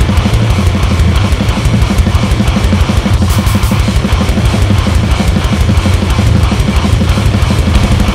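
Heavy metal mix of drums and guitar run through the Otto Audio Blown Out Wall plugin's chainsaw-style extreme distortion, with a fast, steady pulse of low hits.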